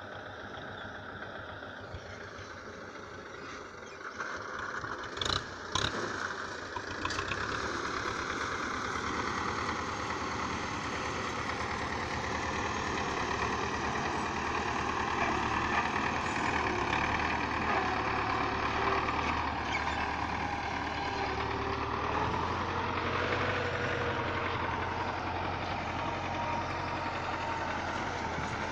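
Tractor engine running steadily, a red tractor with a front levelling blade working the soil, getting louder from about seven seconds in. A couple of sharp knocks about five seconds in.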